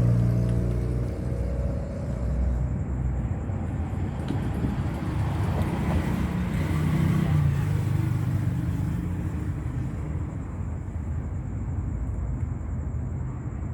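A motor vehicle engine running with a low, steady rumble.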